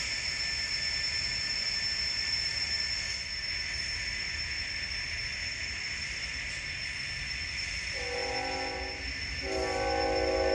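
Steady train rolling noise with a thin high whine. About eight seconds in, a multi-chime diesel locomotive horn sounds a short blast, then after a brief break a longer one that is still going at the end.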